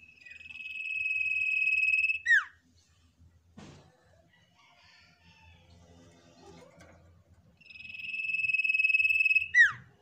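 Common iora (cipoh) calling: two long, steady high whistles, each growing louder over about two seconds and ending in a short, sharp down-slurred note, one near the start and one near the end.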